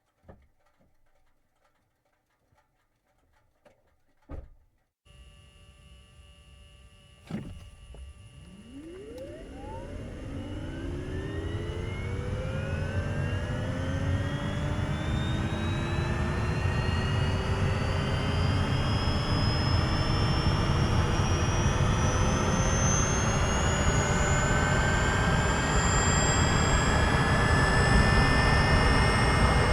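A couple of faint clicks, then a steady low hum comes on, a knock, and a vehicle engine starts. Its whine rises smoothly in pitch over about twenty seconds, levelling off near the top, and keeps getting louder, with no break for a gear change.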